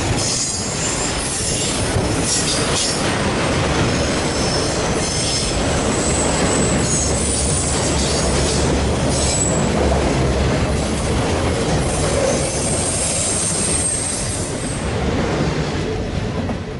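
Freight train cars rolling past with a steady loud rumble, wheels clacking over rail joints and flanges squealing in thin high tones that come and go. The sound drops off suddenly at the very end.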